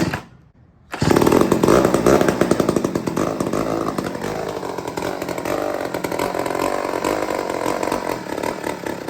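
1959 Mac 150 80cc two-stroke chainsaw being pull-started: a brief burst at the start, then it catches about a second in and runs loud at high revs, easing back slightly after a couple of seconds. This is the saw coming back to life on fresh fuel mix after sitting.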